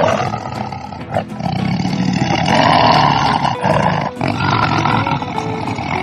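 Tiger growling and roaring: a loud call right at the start, then two long rough calls of about two seconds each.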